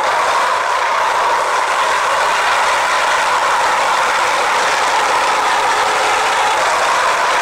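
Steady, even hiss and rumble of an old 1930s newsreel soundtrack, with no distinct events.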